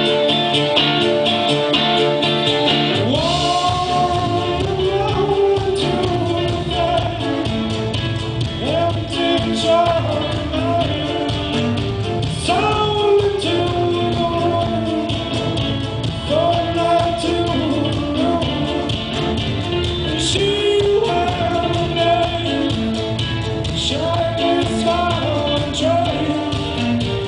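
Live band music: strummed acoustic guitar, joined about three seconds in by a man's lead vocal and the full band with drums.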